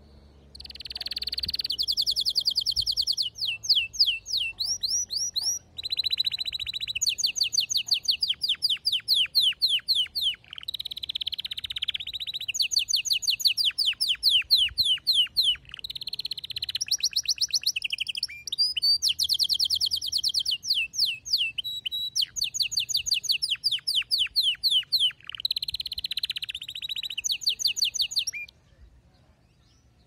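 Male domestic canary singing a long, loud song of fast trills: runs of rapidly repeated notes, each run giving way to the next. It starts about a second in and stops shortly before the end.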